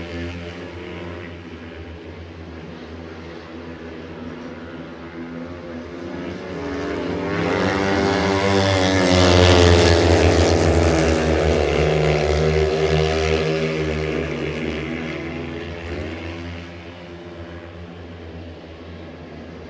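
Speedway motorcycles racing around the track, their 500 cc single-cylinder methanol engines running flat out. The sound grows louder to a peak as a rider comes past close on the bend about ten seconds in, the pitch bending as he passes, then fades as the pack moves away.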